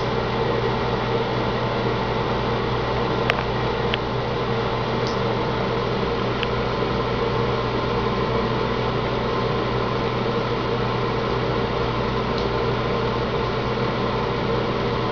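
Bathroom faucet running a thin stream of tap water into the sink, a steady hiss with a fan-like mechanical hum under it. A couple of faint clicks come about three to four seconds in.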